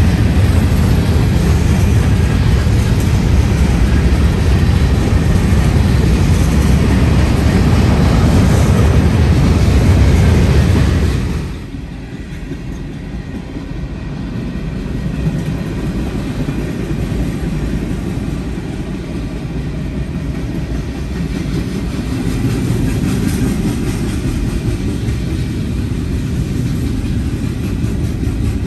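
Freight train cars rolling past: a steady rumble of steel wheels on rail as boxcars and then tank cars go by. About eleven seconds in the sound drops abruptly to a quieter but still steady rumble.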